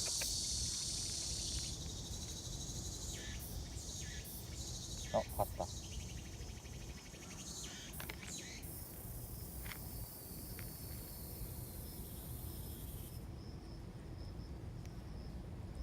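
Insects chirring in a high, steady band that fades and returns, over a low outdoor rumble. A couple of short sounds about five seconds in are the loudest moment.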